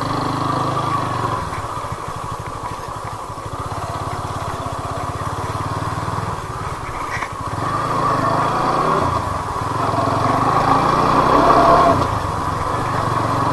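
TVS Apache RTR 200's single-cylinder engine running under way as the motorcycle is ridden. It pulls harder from about eight seconds in and eases off again near the end.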